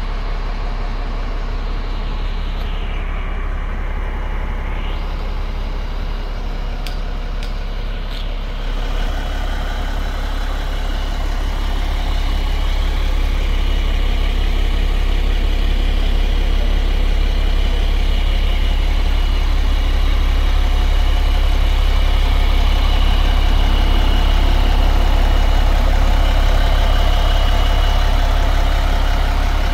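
The fire pumper's Cummins ISC inline-six diesel engine idling steadily. It gets a little louder and fuller about nine seconds in.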